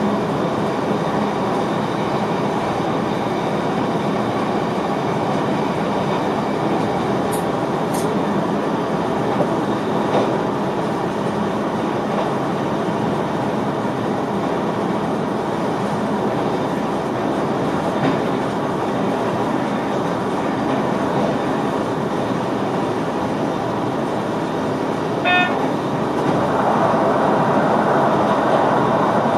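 VIRM double-deck electric train running on the line, heard from inside the driver's cab: a steady rumble of wheels and traction. A short pitched tone sounds about 25 seconds in, and the running noise grows louder near the end.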